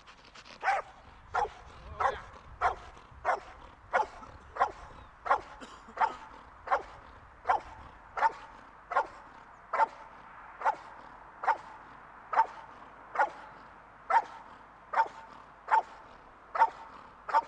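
Dog barking steadily and rhythmically, about one and a half barks a second, as it holds a decoy in a protective suit at bay without biting him: the bark-and-hold of a police-dog fake attack.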